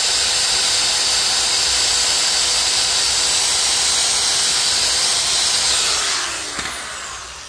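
Corded electric drill running at a steady speed as it bores a pilot hole in a wooden board, then released about six seconds in and spinning down, its pitch falling as it fades.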